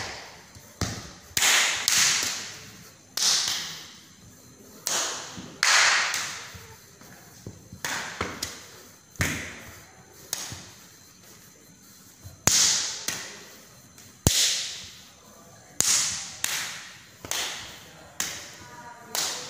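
Silat practice: an irregular series of sharp slaps and stamps from hand strikes and bare feet on a tiled floor, each with a short echoing tail.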